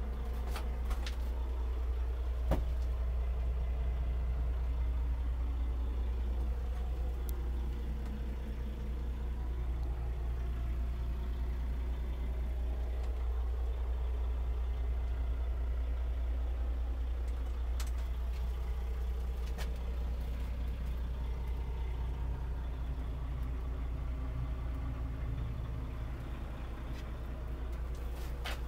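John Deere tractor loader's diesel engine idling steadily, heard from the cab, with a few faint clicks.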